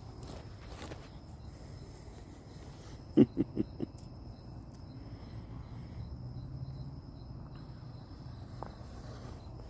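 Crickets chirping steadily, a faint high trill that carries on throughout. About three seconds in come four quick, short, low sounds in a row, the loudest thing heard, over a steady low rumble.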